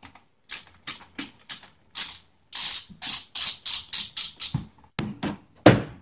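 A screwdriver backing screws out of a washing machine's rear cover panel, a quick run of short turning strokes about two to three a second. Near the end come a sharp click and a louder clatter as the panel is pulled free.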